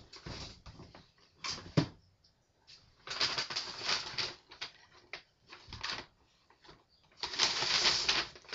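Brown paper shopping bag rustling and crinkling in several bursts as it is handled and rummaged through, with one sharp knock about two seconds in.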